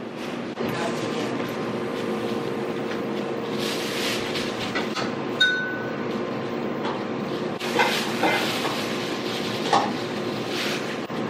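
Thin plastic carrier bag rustling and crinkling in short bursts as a plastic food container is put into it and the bag is knotted, with a few light clicks and clinks. A steady hum runs underneath.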